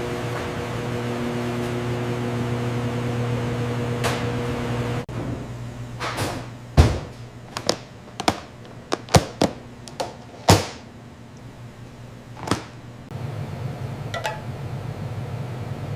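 Factory machinery: a steady mechanical hum with several held tones, which cuts off abruptly about five seconds in. Then comes a series of about ten sharp, separate clanks and clicks, before a steady noisy machine hum starts again near the end.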